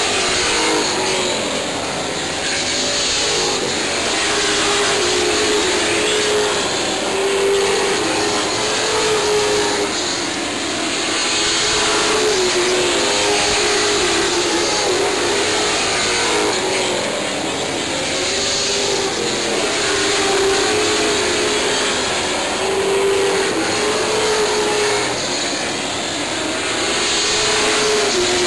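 A pack of Sportsman stock cars racing on a short oval track, engine pitch repeatedly rising and falling as the cars accelerate and lift, the sound swelling and fading every few seconds.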